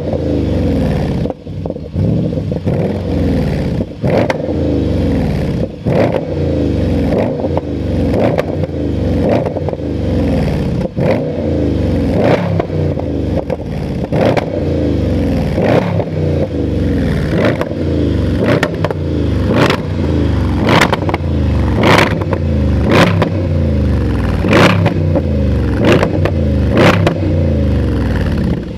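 Jaguar XFR's supercharged 5.0-litre V8 revving up and dropping back over and over, about once a second, with a sharp crack on each cycle and a steady whine above the engine note.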